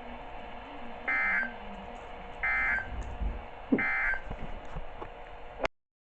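NOAA Weather Radio's SAME digital data tones: three short, identical warbling bursts about a second apart, the End-of-Message code that closes a severe thunderstorm warning. A sharp click near the end, then dead silence.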